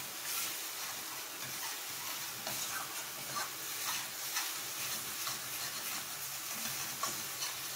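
Thick masala paste of onion, tomato, spices and cashew-raisin paste sizzling steadily in mustard oil in a frying pan as it is fried, while a wooden spatula stirs it with irregular soft scrapes against the pan.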